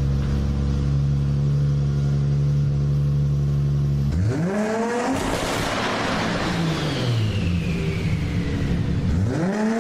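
Car engine idling steadily, then revved sharply about four seconds in. The revs fall back slowly, with a thin high whine dropping in pitch, and the engine is revved sharply again near the end.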